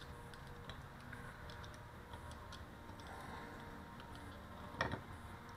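Faint metal clicks and ticks of a small pick prying freshly cast lead slab spoons loose in an aluminum mold, with one sharper knock a little before the end.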